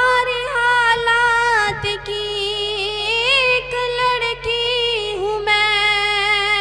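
A woman singing a ghazal couplet in tarannum style into a microphone, unaccompanied, with long held notes that slide and waver.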